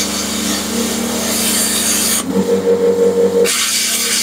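Lidl plasma cutter set to 30 amps cutting 4–5 mm steel plate: a steady hiss of the arc and air with a low hum under it. About two seconds in, the hiss drops out for about a second while a louder, wavering hum takes over, then the hiss comes back.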